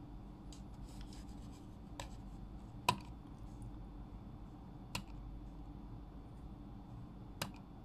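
Four short, sharp clicks or taps, the loudest about three seconds in. Faint rustling comes in the first second or so, all over a low, steady room hum.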